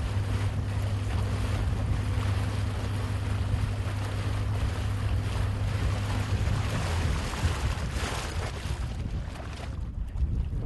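Wind rushing over the microphone, with a steady low motor hum underneath that drops out about seven seconds in.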